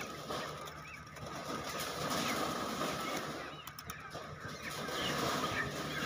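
Broiler chickens squawking and flapping as they are slid down a metal chute into a crate during loading, with a few sharp clicks a little past halfway.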